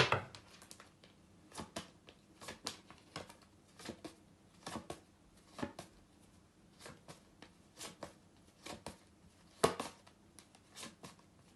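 A pack of phonics flashcards being flipped through one card at a time: a quiet run of short, irregular card flicks, about one or two a second, with a sharper one near the end.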